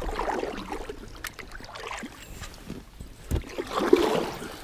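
Kayak paddle strokes splashing in fast-flowing river water, with the water swirling around the inflatable hull. The louder splashes come just after the start and again near the end, with a few light knocks in between.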